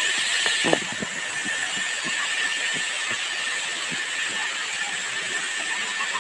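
Steady rushing of a waterfall, with a faint high steady tone running through it and a single knock about a second in.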